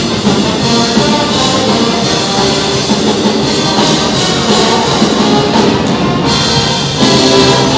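Brass pep band of sousaphones, trumpets and other horns playing a loud, upbeat tune over a drum kit, echoing in a large arena.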